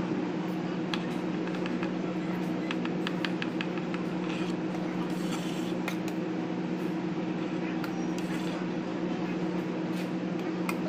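A steady low hum with scattered light clicks and taps.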